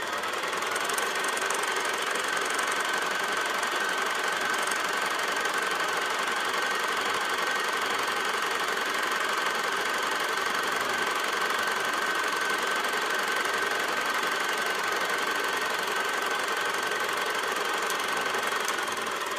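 Old movie film projector running as a sound effect: a steady mechanical whirr with a thin high whine, fading out near the end.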